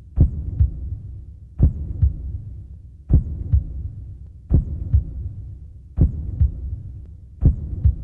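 Slow heartbeat, a double thump (lub-dub) about every one and a half seconds, over a steady low hum.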